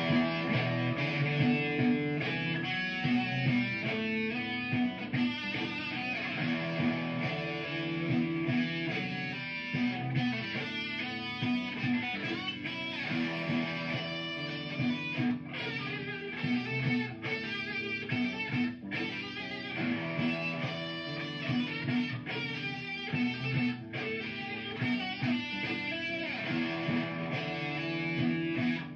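Electric guitar playing an improvised lead solo over a repeating looped backing part.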